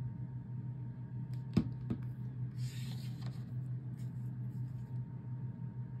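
Small handling sounds of paper craft pieces on a desk: a sharp tap about a second and a half in, a softer one just after, then a brief papery rustle and a few faint ticks, over a steady low hum.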